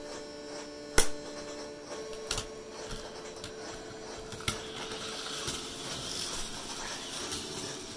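A few sharp plastic clicks and knocks from a toy kart and its plastic K'nex track pieces being handled, the loudest about a second in, then three lighter ones.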